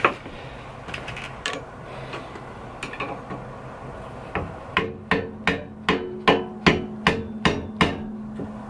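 A screwdriver driven into the slot of a Kawasaki KZ400's lower triple clamp with hammer taps, spreading the clamp open so the fork tube can slide in. A few light knocks come first, then from about halfway a run of about eight sharp metallic taps, two or three a second, with the metal ringing between them.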